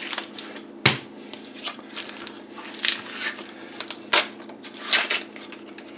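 Paper wrapper being torn and crinkled off a cardboard tube of refrigerated crescent roll dough, with several sharp snaps, the loudest about a second in, as the tube is pressed open along its seam.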